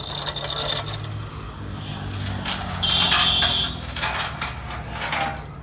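Heavy iron chain clinking and rattling as it is handled around a log slung for lifting, with a brief high metallic ring about three seconds in. A tractor engine idles steadily underneath.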